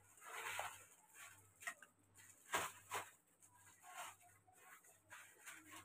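Faint handling noise of plastic-wrapped manicure and pedicure tools: a short crinkle of plastic wrap, then a few light clicks and taps as pieces are picked up and put down.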